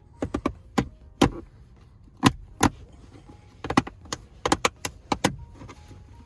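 Sharp plastic clicks and knocks, about a dozen in irregular clusters, from the shift boot and shifter parts of a Hyundai Veloster N being handled and fitted together.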